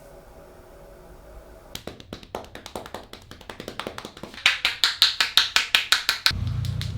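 Rapid hand slaps and taps of a head massage. They begin soft and uneven about two seconds in, then grow loud and regular at about six strikes a second, and stop suddenly near the end. A low hum follows.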